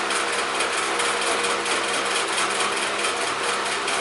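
Steady whirring of a small electric motor running continuously, with a constant hum.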